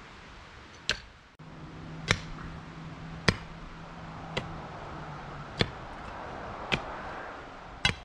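Seven sharp, evenly spaced hammer strikes, about one a second, driving a wooden stake into the ground.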